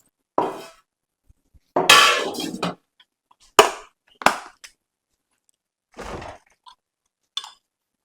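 A series of separate clattering knocks and clinks of hard objects being handled, about six in all, with the longest and loudest clatter about two seconds in.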